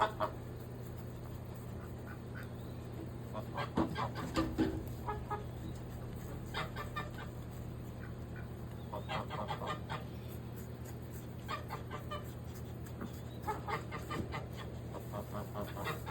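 Chickens clucking in several quick runs of short calls, over a steady low hum.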